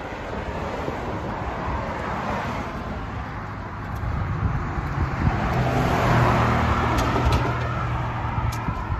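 Road traffic going by close at hand: tyre and engine noise from passing cars and trucks, swelling as one vehicle with an engine hum passes about six seconds in, then easing off.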